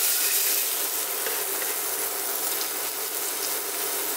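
Hot butter and oil sizzling steadily in a frying pan around the last cubes of shallow-fried paneer.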